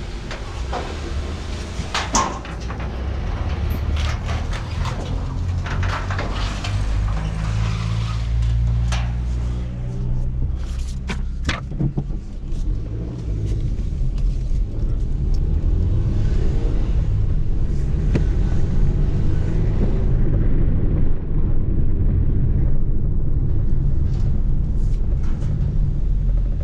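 Suzuki car's engine running with a steady low rumble, heard from inside the cabin as the car is driven. A few sharp clicks and knocks come in the first half.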